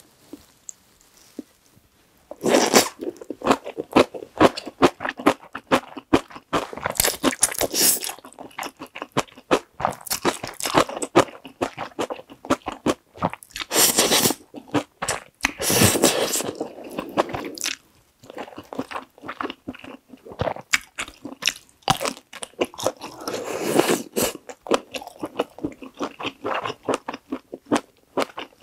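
Close-miked eating of Carbo Buldak stir-fried instant noodles: wet chewing with a run of small clicks, broken by several longer slurps of the saucy noodles.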